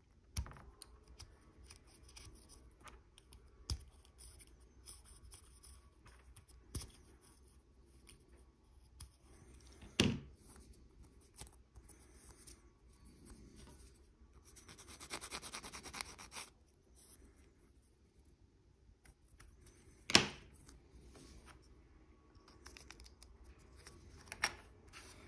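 Hobby knife blade scraping and scratching along a small plastic model tank track part to trim off flash, in short light strokes, with a few sharp clicks and knocks as the parts are handled. A longer, denser scraping run comes about fifteen seconds in.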